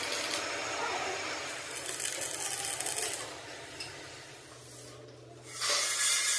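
Stick arc welding on a tractor front-axle steering knuckle: a steady crackling hiss from the arc for about three seconds, a quieter gap of about two seconds, then the crackle starting up again near the end.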